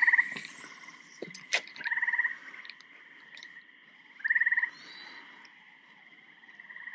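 A frog calling: a short pulsed trill of about half a second, repeated about every two seconds. There is a sharp click about a second and a half in.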